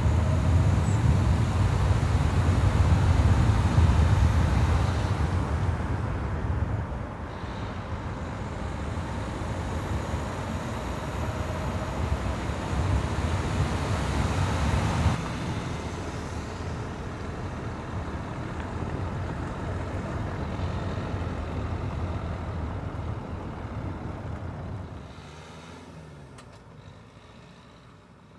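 Dacia Duster SUV driving up a mountain road: a steady engine and tyre rumble, loudest in the first few seconds, that changes abruptly several times and fades near the end as the car pulls away.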